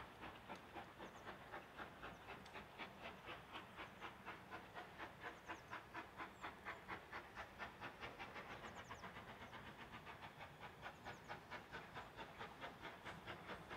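Steam locomotive working along the line, its exhaust beating in a steady, even rhythm of about four chuffs a second, heard faintly.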